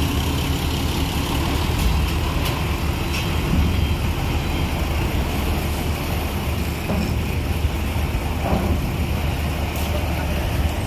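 Diesel tour bus moving slowly over a steel ferry ramp, its engine running steadily with a deep low note, and a few faint knocks along the way.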